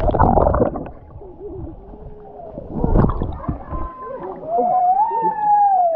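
Water churning and bubbling around a camera held underwater in a hot spring pool, loudest in the first second with another surge about three seconds in. Near the end comes a long, wavering high-pitched squeal that rises and then falls.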